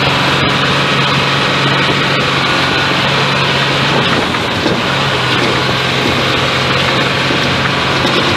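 A pickup truck running, its steady engine hum under a loud, constant rushing noise; the hum drops out briefly about halfway through.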